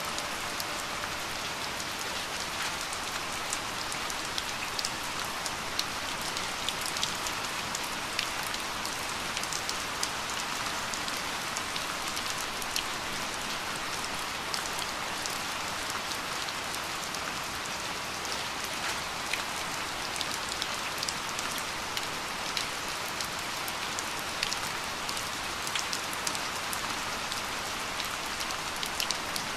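Steady rain falling: an even hiss with many scattered sharp drop ticks.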